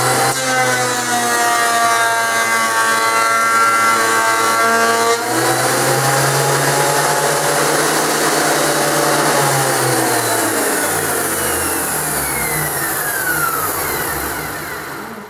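Metabo DH330 thickness planer, fitted with a metal infeed roller in place of its torn rubber one, running and planing a board at a half-millimetre cut for about five seconds, then running free. Near the end its pitch falls as the motor and cutter head wind down.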